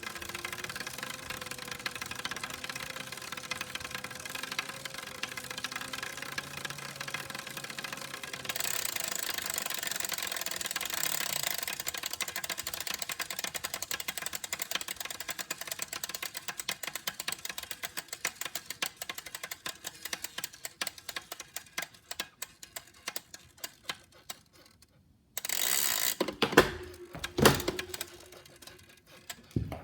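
CycleOps Hammer direct-drive smart trainer spinning with a fast, hollow rattling tick, a new noise that appeared after hard sprint efforts. The ticks grow louder about a third of the way in, then slow and fade until they stop. A few loud knocks and rustles of handling follow near the end.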